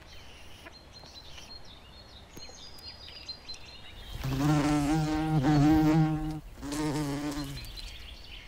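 Wasp buzzing in flight close by: a loud, pitched wing buzz about four seconds in lasting two seconds, then a second shorter buzz just after.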